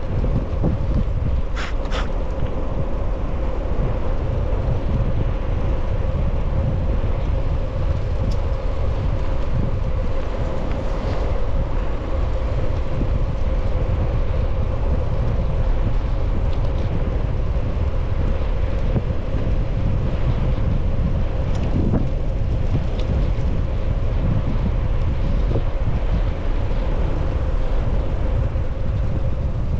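Wind buffeting the microphone during a fast bicycle descent, a loud, steady rush with a constant hum underneath.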